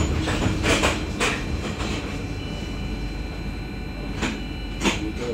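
A T2 tram running on the rails with a steady low rumble and a handful of sharp wheel clacks: several in the first second or so and two more about four to five seconds in.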